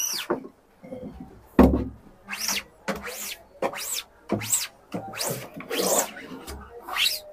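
Hand-held applicator rubbed back and forth across a wooden-framed screen-printing mesh, spreading blue photo emulsion: about eight scraping strokes, each sweeping up and down in pitch, with a low bump of the frame about one and a half seconds in.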